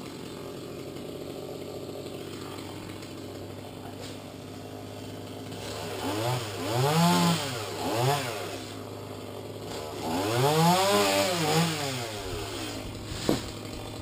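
Chainsaw running steadily at low speed, then revved up and let back down in three bursts, about six, eight and ten seconds in. A short sharp knock comes near the end.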